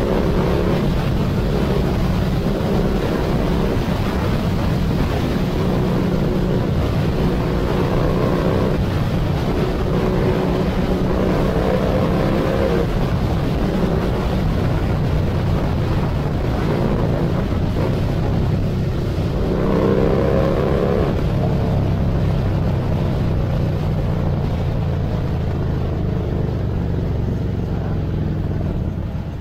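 Motorcycle engine running while riding, with wind rushing over the microphone; the engine note rises and falls several times as the bike speeds up and eases off.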